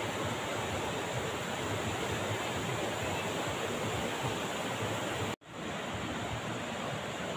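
Steady rushing of a swollen, muddy river pouring over rocks and boulders. The sound cuts out for a split second about five seconds in, then the rushing carries on.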